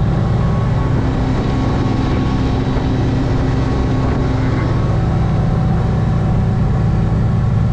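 Boat's swapped-in GM LS V8 engine running steadily under way at speed: a loud, even, low engine drone.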